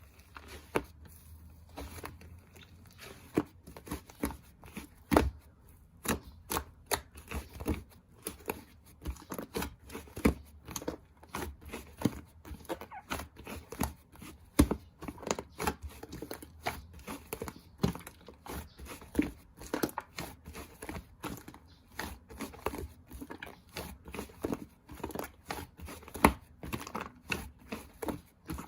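Slime being squished and pressed by hand: an irregular run of small clicks and pops, several a second.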